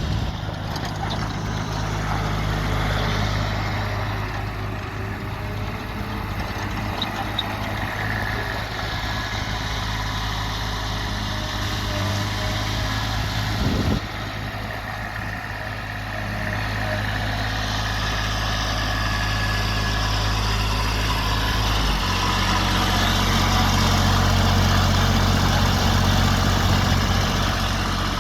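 Diesel engine of a Toro Groundsmaster 328-D mower running steadily. Its note shifts about three-quarters of the way through and gets slightly louder.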